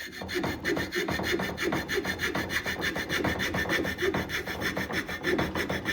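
Hand saw cutting through a tupelo wood decoy head in quick, regular strokes, sawing out the bill profile from the top down.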